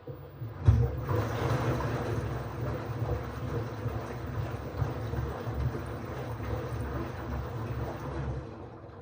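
LG FH0B8LD7 front-loading washing machine's drum turning during a hot drum-cleaning wash, with water churning inside over a low rumble. It starts abruptly about a second in and stops near the end.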